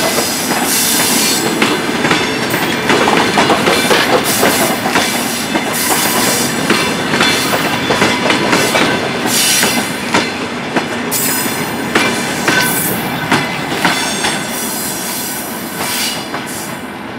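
Passenger coaches of an arriving train rolling past, their wheels clattering in quick knocks over the rail joints. The noise eases off near the end as the last coach goes by.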